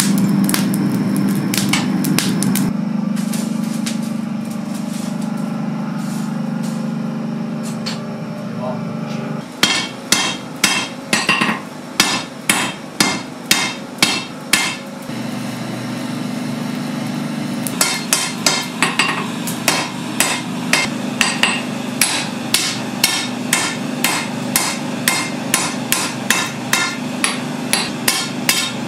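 A steady low hum, then a blacksmith's hand hammer striking red-hot steel bar on an anvil to forge an arrowhead point. The first run of blows comes at about two a second, and after a short pause a second run comes at about three a second.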